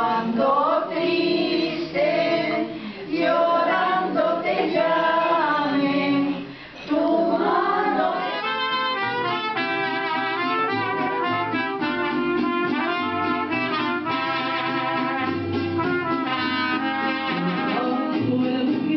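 A group of voices sings without accompaniment. About eight seconds in, a mariachi band starts playing with trumpets, guitars and a deep guitarrón bass line.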